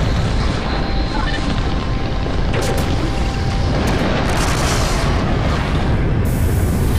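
Spacecraft landing-thruster sound effect: a deep, steady rumble with rushing hiss that swells several times and is strongest near the end as the craft touches down.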